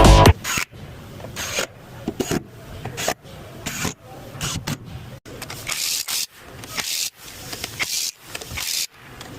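Irregular short scraping and rubbing noises, one or two a second, with brief gaps between them.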